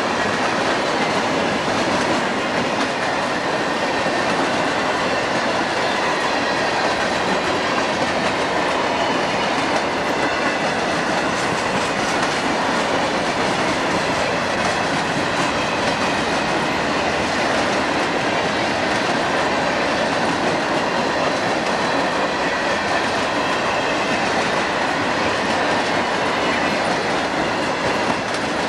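Freight train cars rolling past steadily, steel wheels running over the rails with a continuous clickety-clack.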